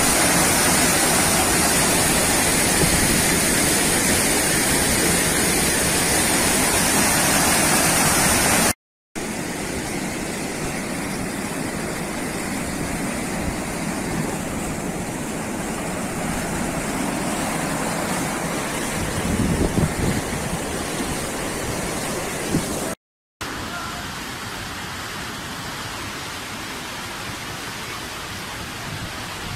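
Fast-flowing muddy floodwater rushing in a torrent, a dense steady rush of water. The sound cuts out briefly twice as the clips change, and is loudest in the first part.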